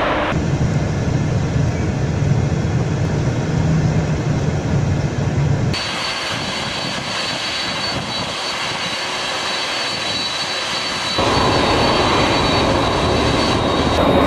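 Steady rushing noise of a jet airliner, heard in short clips cut together, the sound changing abruptly at each cut.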